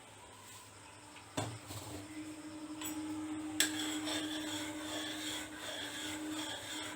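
Pot of milk and tea heating on the stove: a knock about a second and a half in, then a steady low hum with a hiss that slowly grows louder as it comes to the boil.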